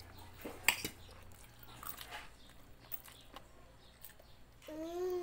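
Spoons and forks clinking lightly on plates at a meal, a few separate clicks. Near the end a long, steady, pitched call begins.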